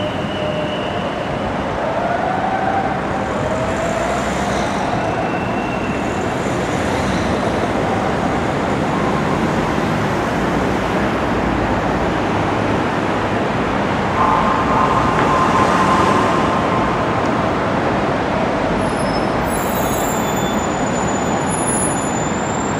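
Steady road traffic noise as police cars with flashing lights, then ordinary cars, drive through a roundabout under an overpass. Faint gliding tones come and go in the first several seconds, and a brief steady tone rises over the traffic about two-thirds of the way through.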